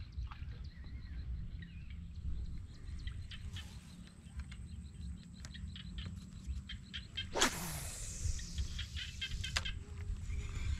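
Birds chirping over a steady low wind rumble on the microphone, with one loud sweep falling quickly in pitch about seven seconds in.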